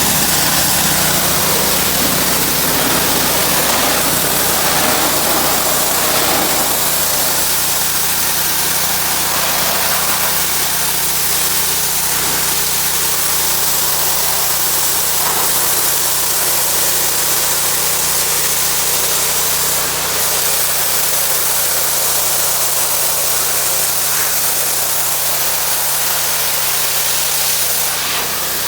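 Pressure washer running steadily: a motor drone under the continuous hiss of high-pressure water spray.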